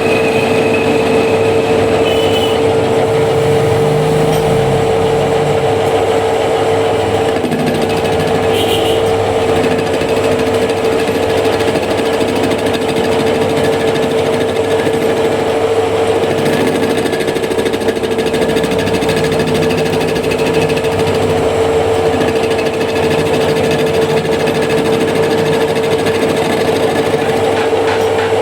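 Metal-working lathe running continuously: a steady whine over a dense mechanical clatter.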